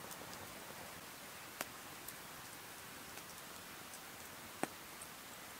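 Wood campfire under a grill crackling faintly: a soft steady hiss with two sharp pops, about a second and a half in and near the end, and a few lighter ticks.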